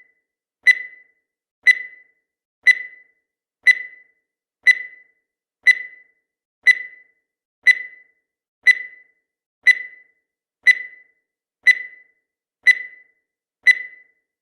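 Countdown timer sound effect: a short, high beep once every second, each starting sharply and fading quickly, fourteen in a row with silence between.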